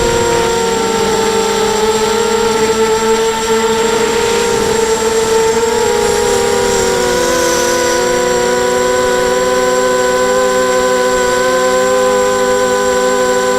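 Eachane Racer-250 quadcopter's motors and propellers whining steadily in flight. Several close pitches drift up and down slightly as the throttle changes, one dipping lower a little past halfway.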